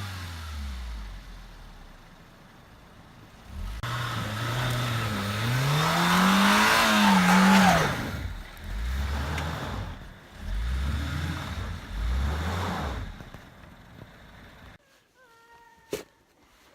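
A car engine revs hard in repeated bursts as the driver tries to pull the car out of deep snow where it is stuck. First comes one long rev that rises and falls, then three shorter ones. The sound cuts off suddenly near the end.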